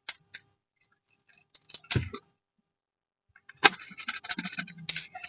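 Packaging being opened and handled: a few scattered rustles and clicks, then from a little past halfway a denser stretch of crinkling and rustling.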